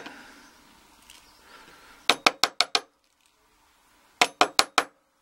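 Sharp metallic clicking of a steel tool against the brass housing of a disassembled euro cylinder lock while its pin springs are worked out. It comes in two quick runs of about five clicks each, about two seconds apart.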